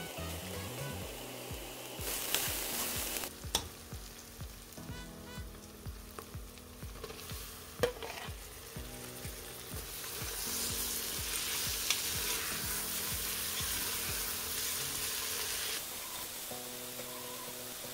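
Food sizzling in a frying pan as it is stirred, with a few sharp knocks of the spoon against the pan. The sizzle swells briefly about two seconds in and again for most of the second half, over soft background music.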